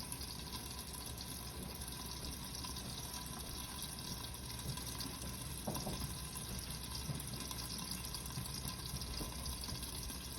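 Ribeye steak sizzling steadily in a hot frying pan, a low, even hiss.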